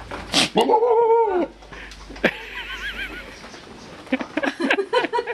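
Goat bleating once, a loud, wavering, scream-like call about a second long, starting about half a second in. A few short clicks and noises follow near the end.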